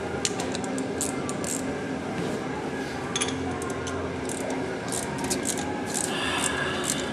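Light, irregular metallic clicks and scrapes of a socket wrench worked on a header bolt of a small-block Chevy V8, over a steady low hum.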